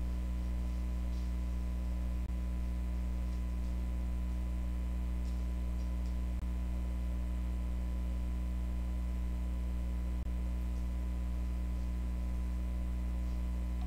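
Steady low electrical hum, with a thin steady tone above it and three faint clicks.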